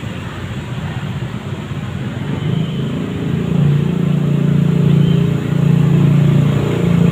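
Road traffic: a vehicle engine's low hum over street noise, growing louder about halfway through.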